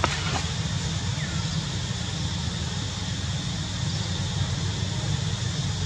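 Steady outdoor background noise with a low wind rumble on the microphone, and a faint click right at the start.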